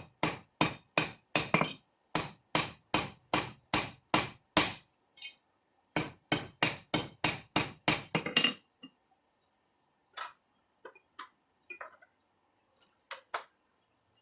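Hand forging: a 32-ounce ball peen hammer strikes rebar steel in a steady rhythm of about two and a half blows a second. The blows break off briefly twice, stop about two-thirds of the way in, and give way to a few faint light clinks of metal.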